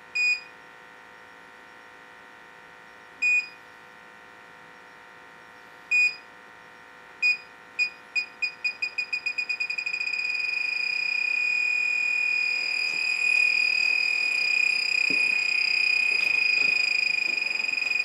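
Electronic combustible gas leak detector beeping: single high beeps about three seconds apart, then speeding up from about seven seconds in until they merge into a steady tone. The faster beeping signals it is picking up gas at the gas piping, which the technician takes for a leak at a union and elbows.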